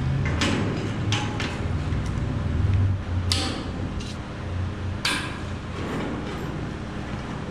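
Steel frame parts and locking-pliers clamps clanking and clicking as a frame horn is positioned and clamped onto a Model A Ford frame rail: about half a dozen sharp metal knocks spaced irregularly over the first five seconds.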